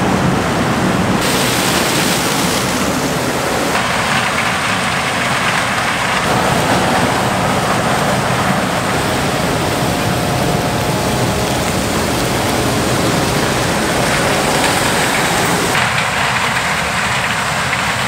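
Gleaner S97 combine harvesting corn, with a tractor and grain cart working alongside: a steady, loud noise of engines and harvesting machinery with no clear rhythm. Its character changes abruptly several times.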